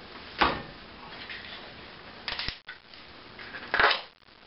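Three short rustling, scraping handling noises, one ending in a sharp click, from a new container of grated Parmesan cheese being handled and opened.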